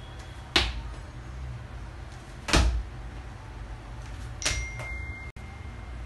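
A child's trainers landing on a tiled floor as she jumps through hula hoops: three loud landings about two seconds apart, with a few lighter footfalls between them.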